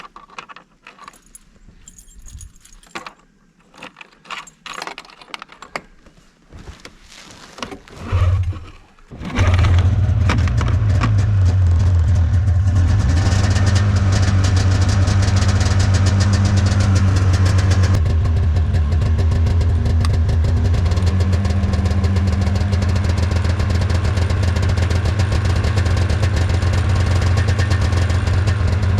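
Small clicks and rustles, then a snowmobile engine turns over briefly about eight seconds in. It catches about a second later and runs steadily at idle.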